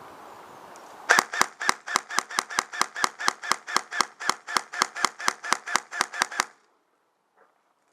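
An airsoft gun firing a steady string of about twenty loud shots, about four a second, each a sharp crack with a short metallic ring. The string stops suddenly after about five seconds.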